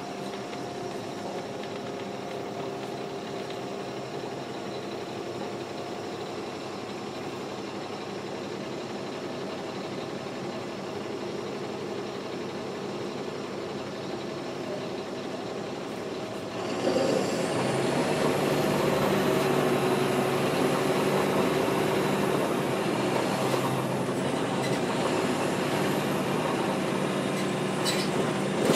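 NABI 416.15 transit bus with a Caterpillar C13 ACERT diesel engine and ZF Ecomat transmission, running steadily. About two-thirds of the way in it suddenly gets louder and stays loud, with a high whine that rises and falls.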